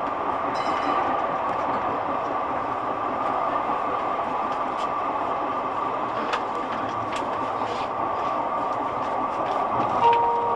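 A Calgary C-Train light rail vehicle, a Siemens-Duewag U2, heard from its driver's cab while running along street track: a steady running hum with a few scattered clicks from the wheels on the rails. A short steady tone sounds near the end.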